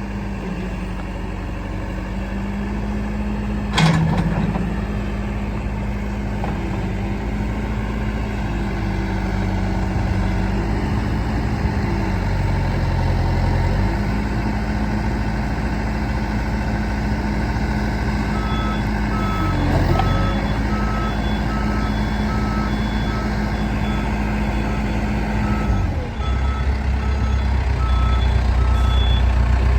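Case 580 Super M backhoe loader's 95 hp turbo diesel running, its pitch stepping and dipping as the machine is run through the gears with the wheels off the ground, with a sharp knock about four seconds in. About two-thirds of the way in, a reversing alarm starts beeping steadily, about two beeps a second, and the engine turns deeper and louder near the end.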